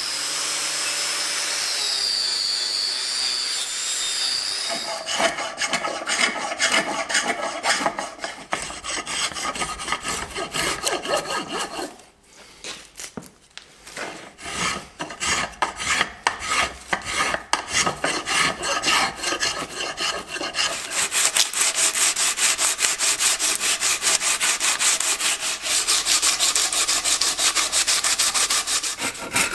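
Rhythmic back-and-forth strokes of a hand tool cutting or rasping wood, with a short pause partway through and faster, denser strokes near the end. It opens with a few seconds of a steady whine.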